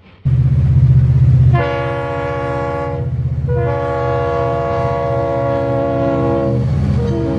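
Train horn sounding a chord of several notes over a steady low engine rumble: a blast of about a second, a longer blast of about three seconds, and a third starting near the end. The rumble cuts in suddenly just after the start.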